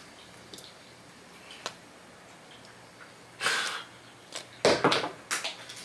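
Cardboard jigsaw puzzle pieces breaking apart as the assembled puzzle is lifted. A few faint clicks, then a burst of rustling and a quick run of sharp clicks as the pieces come loose and drop onto the table.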